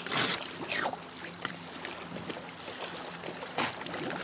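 Water splashing as a tawny nurse shark thrashes at the surface, taking food from a hand at a boat's side: a few short splashes, the loudest just after the start, another about a second in and one near the end.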